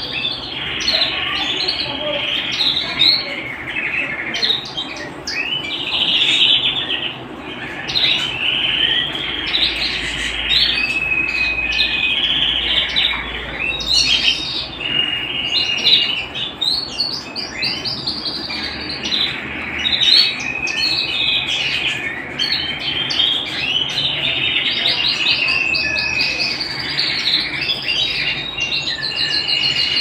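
Domestic canary song, running on without pause: long fast trills and rapid runs of repeated notes, broken by held whistled notes.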